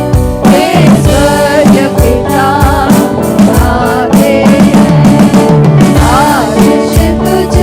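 Gospel worship song with singing over a band, with a steady drum beat.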